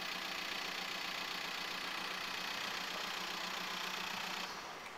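Steady engine idling, a constant low hum under an even hiss, that cuts off suddenly about four and a half seconds in.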